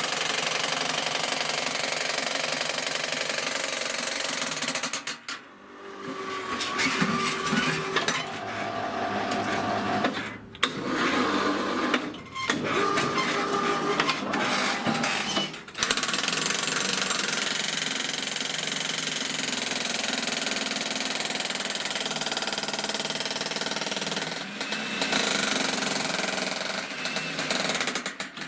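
Jackhammer attachment of a homemade electric power shovel hammering in long runs, broken by a few short pauses.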